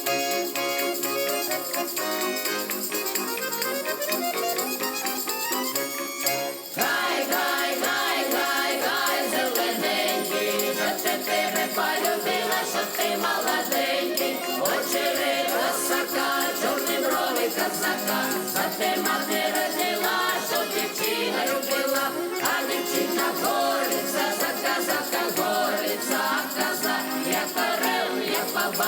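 Instrumental introduction to a lively Ukrainian folk song, with jingling, shaken percussion over the melody. The music moves into a new section about seven seconds in.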